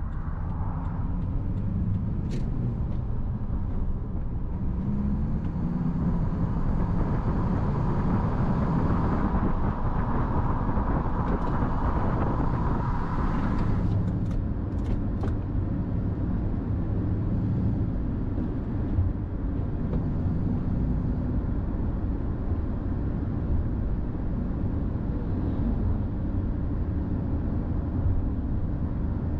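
Cab interior of a Ford Super Duty pickup truck on the move: steady engine and road rumble. From about four seconds in, a louder hiss and a steady whine ride on top for about ten seconds, then drop away suddenly, with a few light clicks.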